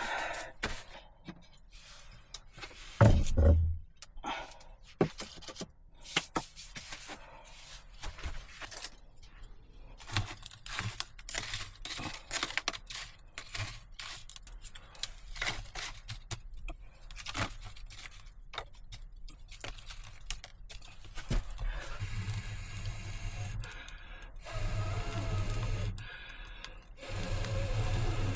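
Irregular clicks, scrapes and crackles, with a heavy thump about three seconds in. From about twenty-two seconds a steady low hum joins, breaking off and returning twice.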